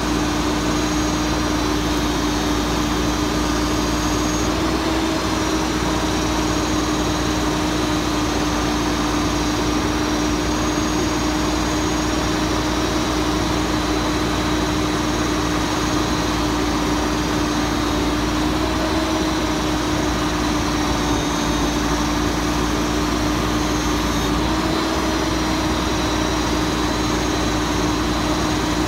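Mack Granite garbage truck's diesel engine running steadily with a constant drone while it powers the hydraulic crane lifting and emptying a Bagster bag. The pitch steps up slightly about five seconds in, again around nineteen seconds, and near twenty-five seconds as the crane works.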